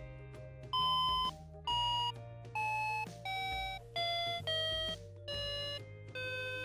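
Tomy Lamaze musical plush elephant playing electronic notes as its trunk buttons are pressed in turn. About eight beeping tones, each about half a second long, step down in pitch like a descending scale over a steady low electronic hum.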